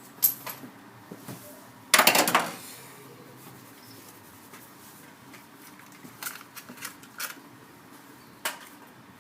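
Scattered clicks and clinks of hard parts and tools being handled during engine work, with one louder half-second clatter about two seconds in.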